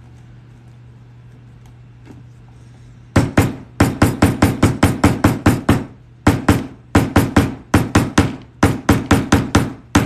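Hammer blows on a hole punch set on thick, stiff glued leather: rapid sharp strikes, about four or five a second, in several runs starting about three seconds in. The punch is not getting through the hard double layer, only leaving a mark.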